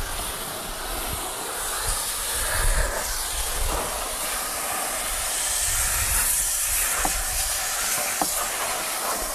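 High-pressure washer jet hissing steadily as it blasts water onto a truck's tyre and wheel arch, the spray noise shifting a little as the lance moves.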